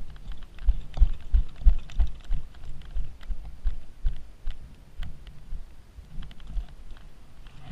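A run of dull, low thumps, about three a second for the first few seconds and then sparser, with faint light clicks over them.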